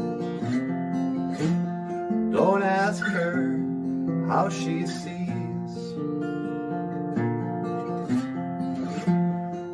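Acoustic guitar strumming a steady run of chords, with a brief wavering high note about two and a half seconds in.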